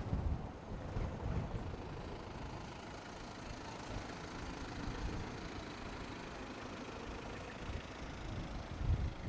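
A motor vehicle's engine running steadily, a low rumble that swells slightly near the start and again near the end.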